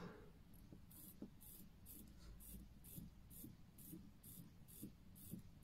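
Faint, regular ratcheting clicks from the crown of a Seiko NH35A automatic movement being turned to hand-wind the mainspring, about two bursts a second.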